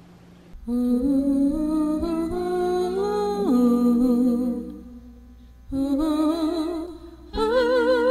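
Intro theme music: a wordless hummed melody in three phrases, with long held notes that waver and one note that slides down partway through the first phrase.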